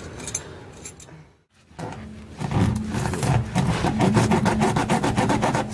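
Tire plug kit's reamer tool rasping and scraping through the puncture in the rubber tire tread, a fast rhythmic grinding that starts about halfway through.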